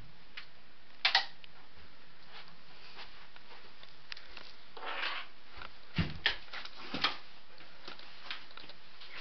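A few scattered knocks and thumps over a steady hiss: a sharp double click about a second in, a brief rustle around five seconds, then three knocks between six and seven seconds.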